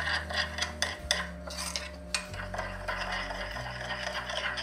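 A metal fork stirring and scraping a dry rub of brown sugar and spices in a glass bowl, in repeated scratchy strokes with sharp clicks of metal against the glass.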